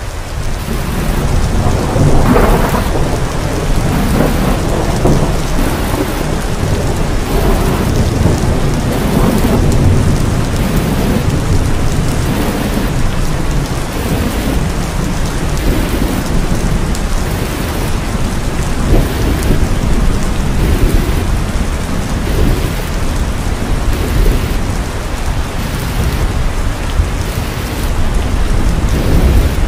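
Wind buffeting the microphone: a loud, continuous low rumble that swells and falls in gusts.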